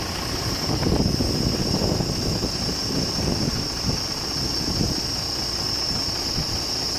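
Truck crane's diesel engine running steadily, with a steady high-pitched whine above it, while the crane holds a suspended load.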